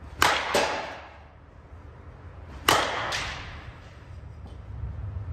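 Two sharp cracks of a Monsta APS composite slowpitch softball bat hitting softballs, about two and a half seconds apart, each followed a moment later by a second, slightly quieter impact.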